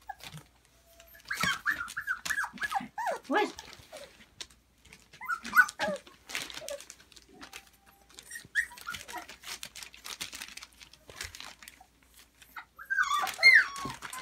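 Young puppies yipping and whining in short high squeals as they play, in bursts with the loudest near the end, over a steady patter of claws scratching and ticking on plastic sheeting.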